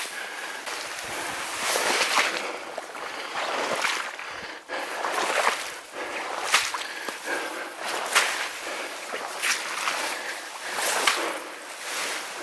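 Wading through a reedy marsh: rhythmic swishing of reeds and stems against the body and splashing of water, about one stride every second or so.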